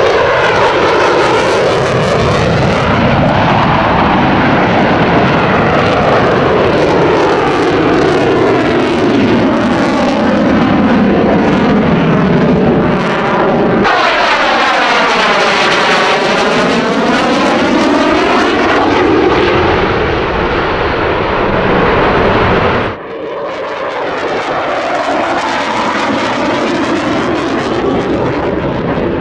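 Jet noise from an F-22 Raptor flying past overhead on afterburner: a loud, rushing engine sound that swells and sweeps with a phasing whoosh as it passes. Near the end it cuts suddenly to quieter, more distant jet noise from a Dassault Rafale.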